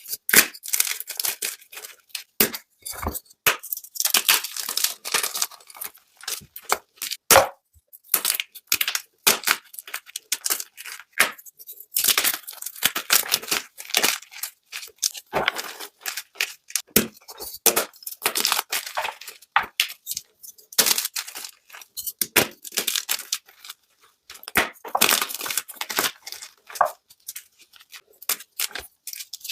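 Blocks of white and blue gym chalk being crushed, crunching and crumbling in dense, irregular crackles, played back sped up.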